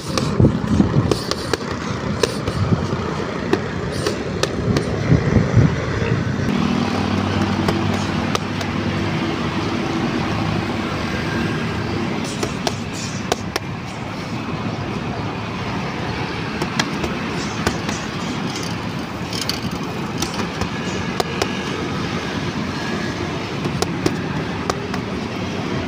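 Steady road traffic running past, with sharp slaps of boxing gloves striking focus mitts scattered through it. A steady engine hum comes in about a quarter of the way through and holds for several seconds.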